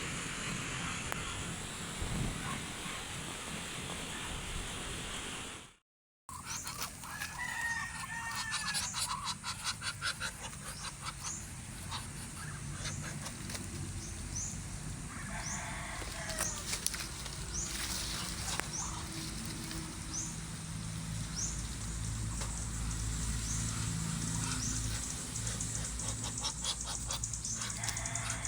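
Chickens calling, with a rooster crowing and short high chirps repeating about once a second. The sound cuts out briefly about six seconds in.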